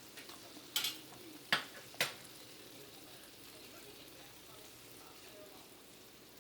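Three sharp knocks of kitchen utensils against a pan or dish, close together a second or two in, over a faint steady hiss.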